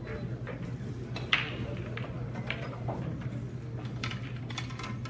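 Pool hall background: a steady low hum with scattered sharp clicks of billiard balls striking on nearby tables, the loudest about a second in.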